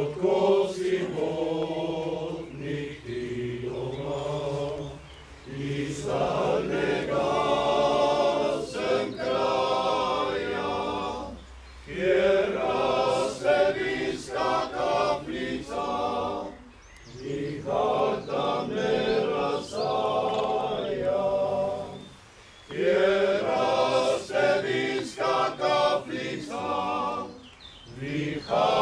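Small male choir singing a cappella, in phrases of about five seconds with short breaks between them.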